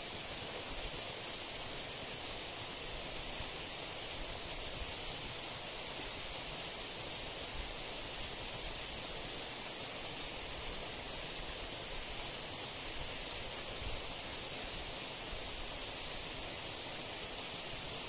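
Steady, even outdoor hiss with no distinct events, the kind left by wind or distant running water.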